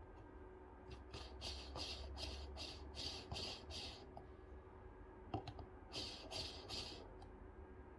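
Espresso distribution tool being twisted on the coffee grounds in a portafilter, giving faint, quick scratchy strokes about three a second. A run of about nine strokes is followed by a light knock, then three more strokes near the end.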